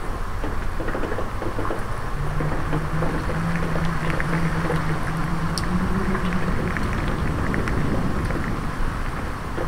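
Steady autumn rain with wind, drops pattering into a puddle. A low hum comes in about two seconds in, rises slightly in pitch and fades out about two-thirds of the way through.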